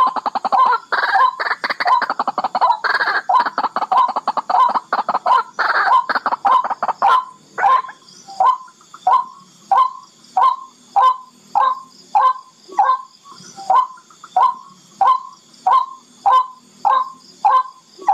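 Barred rail (tikling) calling: a fast, harsh rattling chatter for the first seven seconds or so, then a steady series of short single calls, about three every two seconds.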